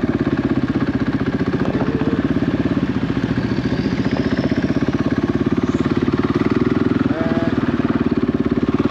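Single-cylinder 450 rally motorcycle engine running steadily as the bike is ridden slowly, heard from on the bike.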